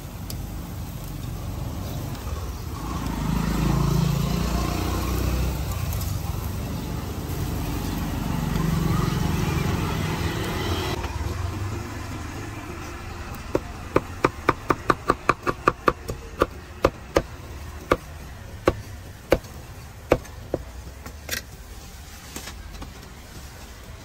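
Motor vehicles pass close by twice, a low engine rumble swelling and fading over the first ten seconds. Then a run of sharp knocks, quick at first at about four a second, then slowing and spacing out: a cleaver chopping on a wooden board.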